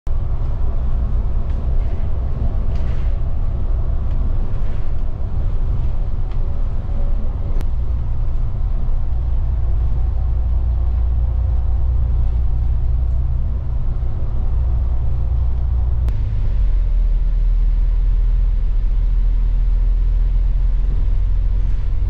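Steady low rumble of a moving double-decker bus's engine and tyres, heard from inside on the top deck, with a wavering engine hum above it. The rumble grows deeper and a little louder about three-quarters of the way through.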